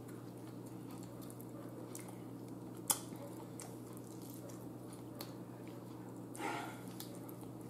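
Quiet close-up mouth sounds of someone gnawing meat and gristle off an air-fried chicken bone, with faint wet chewing clicks over a steady low hum. One sharp click about three seconds in.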